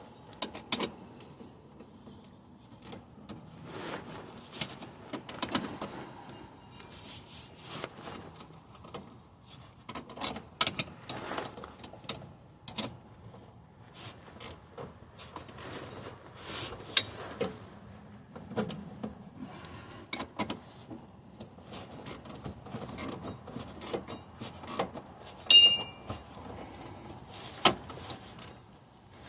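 Scattered metallic clicks, taps and clinks of hand tools and hardware while the heim-joint shifter rod and its bushings are fitted to the transfer case linkage, with one ringing metal clink near the end.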